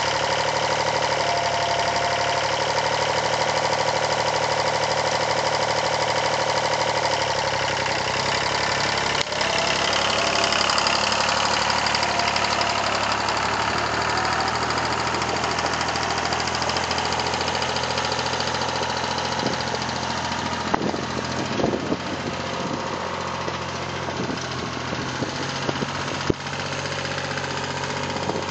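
Yanmar 336D diesel engine running steadily, its pitch shifting about nine seconds in, with several sharp knocks or clicks near the end.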